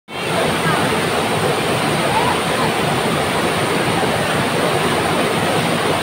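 Steady rush of a waterfall's cascade pouring over boulders into a pool, heard close up.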